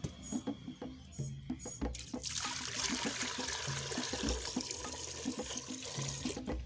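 Background music with a steady beat. About two seconds in, a steady rush like water being poured starts, runs for about four seconds and stops abruptly.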